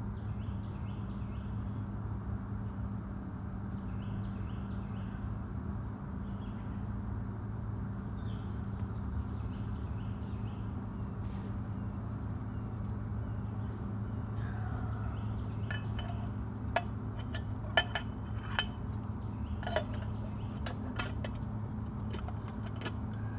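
Metal camp cookware clinking, a pot and cup knocked and set down several times in the last third. Under it, small birds chirp faintly throughout over a steady low hum.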